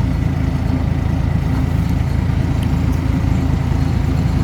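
Dump truck's diesel engine running steadily under way, a low even drone with no changes in pitch.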